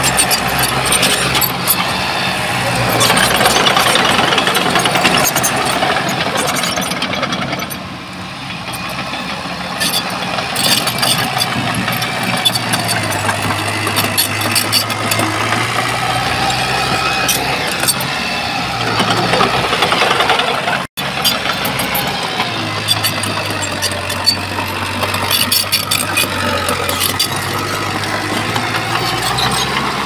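Bulldozer's diesel engine running steadily, with repeated metallic clanking and rattling from the working machine. The sound cuts out for an instant about two-thirds of the way through.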